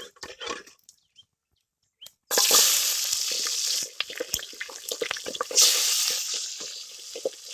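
After a short silence, chopped onions hit hot oil with fennel and cumin seeds in a pan and sizzle loudly for about a second and a half. A ladle then clicks and scrapes against the pan as they are stirred, with another surge of sizzling about halfway through.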